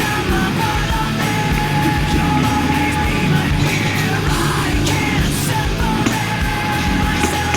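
Heavy rock music with a steady drum beat, in a passage between sung lines.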